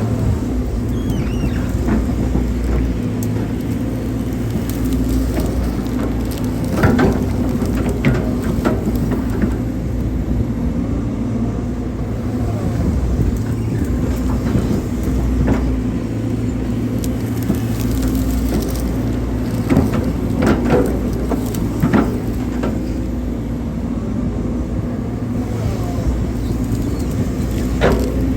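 Hydraulic excavator engine running steadily while digging, with occasional knocks and scrapes of the bucket working the soil.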